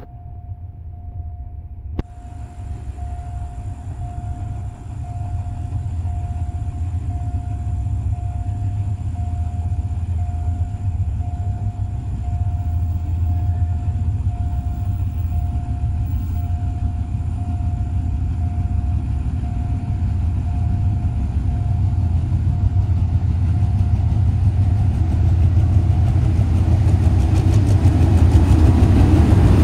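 GE diesel-electric locomotive GEA 4547 hauling an express passenger train, approaching with a deep engine rumble that grows steadily louder and passes close by near the end.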